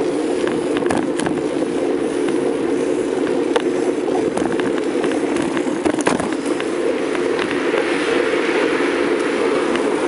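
Bicycle ride along a street: a steady rumble of tyres on the road and air moving past, with frequent small rattling clicks from the bike. A sharper knock comes about six seconds in.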